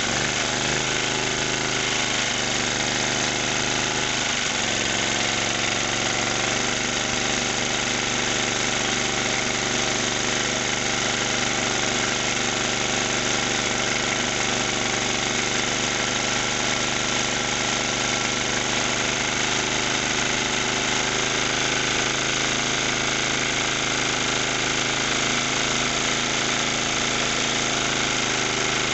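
1963 Briggs & Stratton 2.25 hp single-cylinder four-stroke engine running steadily on a workbench. Its pitch shifts slightly about four seconds in.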